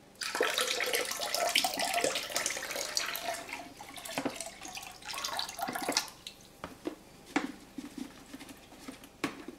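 Liquid brewer's yeast pouring from a pouch into a plastic fermenting bucket: a splashing trickle that starts suddenly, runs about six seconds, then thins to scattered drips.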